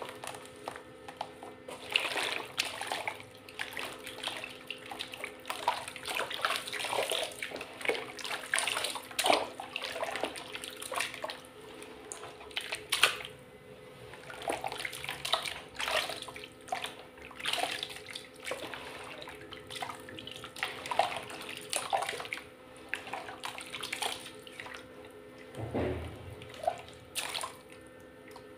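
Hands squeezing and kneading wet, watery mud in a plastic tub: irregular squelching and sloshing, one wet sound after another.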